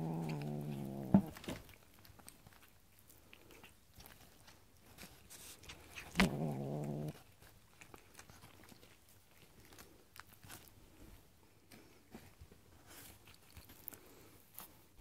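A cat giving two low, drawn-out yowls, each about a second long and about six seconds apart. A sharp knock comes right after the first yowl and is the loudest sound, another click comes as the second begins, and faint scattered ticks follow.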